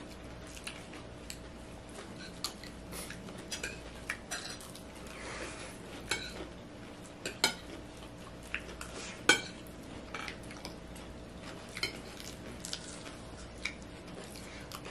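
Cutlery clinking and scraping against plates as several people eat, in scattered irregular clicks with a couple of louder clinks around the middle.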